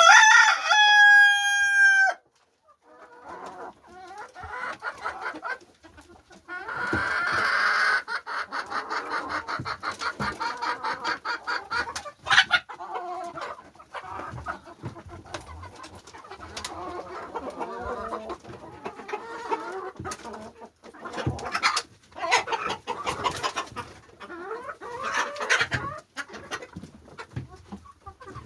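A rooster crows once, loud and held, at the start, then a flock of chickens clucks and calls steadily.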